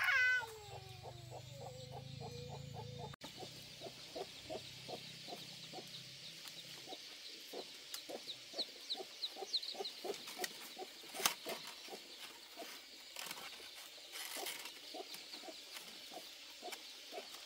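The tail of a rooster's crow falling away in the first half-second, then chickens clucking over and over, a couple of clucks a second. There is one sharp tap about eleven seconds in.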